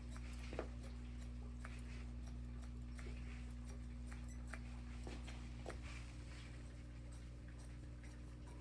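Electric hair clipper running with a steady low hum, with irregular light clicks as it works through the hair.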